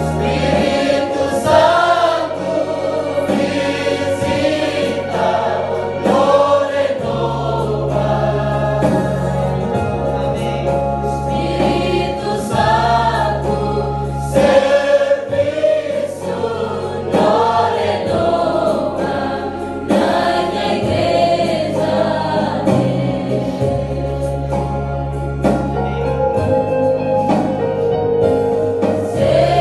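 A mixed choir of young women and men singing a gospel worship song together, over held low bass notes that change every few seconds.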